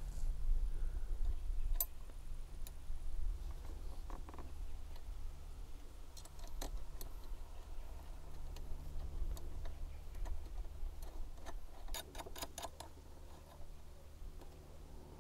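Small clicks and taps of a screw, washer and nut being handled and fitted to a motorcycle windscreen mounting plate: a few isolated clicks, then a quick run of several clicks near the end, over a steady low rumble.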